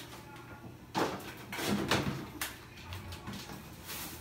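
Knocks and clatter of kitchen doors and grocery items being handled as groceries are put away in a fridge and cabinets, with a few sharp sounds starting about a second in and more around two seconds.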